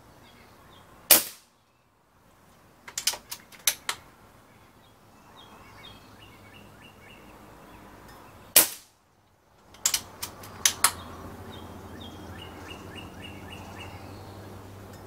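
Umarex Gauntlet .22 PCP air rifle fired twice, about seven and a half seconds apart, each shot a single sharp crack. Roughly two seconds after each shot comes a quick run of metallic clicks as the bolt is cycled to chamber the next pellet.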